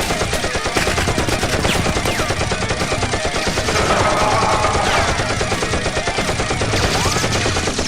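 Sustained rapid automatic gunfire, shot after shot with no break, like the added gun sound effects of a shooter game.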